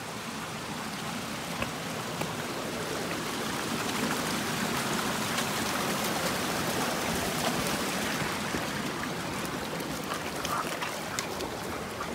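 Mountain creek rushing over rocks: a steady watery rush that grows a little louder over the first few seconds.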